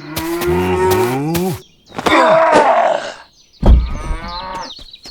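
A long, low lowing call that slides in pitch, then a harsh noisy burst about two seconds in and a heavy thud a little later.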